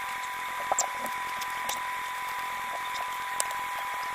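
Knife slicing through a stack of chapatis on a plastic cutting board, with a few sharp clicks of the blade on the board, over a steady hiss with a thin high tone.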